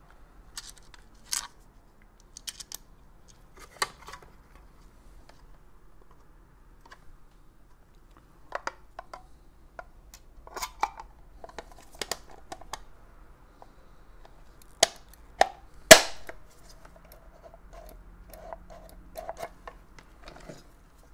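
Scattered clicks and knocks of small hand tools, cables and a plastic foot-pedal housing being handled and set down on a cutting mat, with the loudest knock about 16 seconds in.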